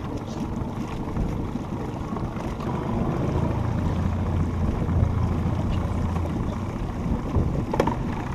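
Wind rushing over the microphone and water lapping against the hull of a small boat on choppy water, with a single knock near the end.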